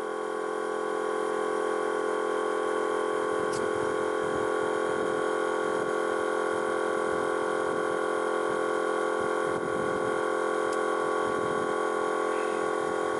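Air-suspension compressor running steadily, pumping the air bags up toward their maximum pressure. The sound is an even, unchanging drone. The owner calls the compressor not the quietest.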